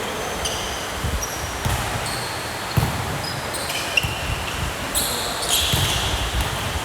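Basketball game play: a ball thumping on the court several times at uneven intervals, with short high-pitched sneaker squeaks scattered through.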